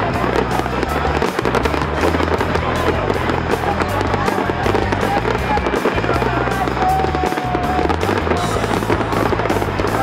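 Fireworks crackling and popping in a dense, continuous barrage, with music playing underneath.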